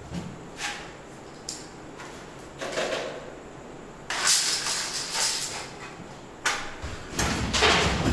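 Coin pusher machine with coins clicking and clattering: a few sharp clicks at first, then from about four seconds in a louder, continuous metallic rattle.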